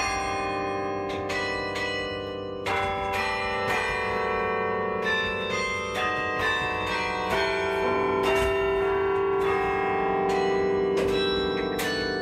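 A 78-bell carillon played from its baton keyboard: a tune of struck bells, several notes a second, each ringing on over the others, with lower bells sounding beneath the melody.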